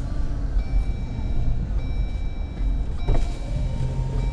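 2021 Jeep Gladiator Mojave rolling slowly at low speed, heard from inside the cab as a steady low rumble, with a faint thin steady tone over it and a brief knock about three seconds in.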